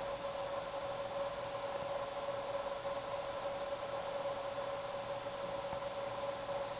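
Steady background hum and hiss with a constant mid-pitched tone and no separate events.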